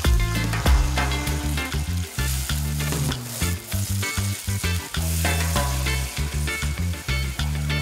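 Oily masala paste in a hot non-stick pan sizzling and bubbling as water is poured in, then a wooden spatula stirring and scraping through it, under background music with a bass line.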